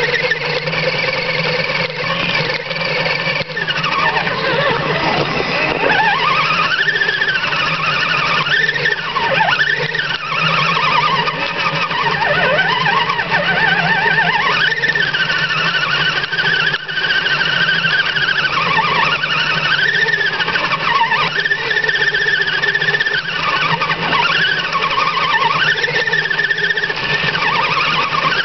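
Electric motor and gear whine of an Axial RC rock crawler, rising and falling in pitch every second or two as the throttle is worked.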